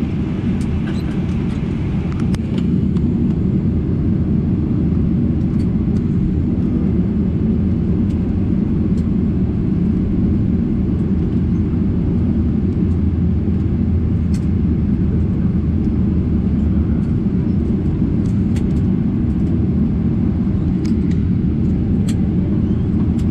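Steady low rumble in the cabin of a Boeing 737-800 taxiing after landing, its CFM56 engines at idle, with a few faint clicks now and then.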